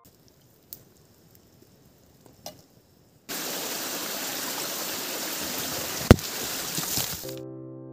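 Steady rushing of a forest stream that cuts in abruptly about three seconds in, after a quiet stretch with a few faint clicks. A sharp knock comes about six seconds in and a smaller one near seven, and the water cuts off just before the end as piano music starts.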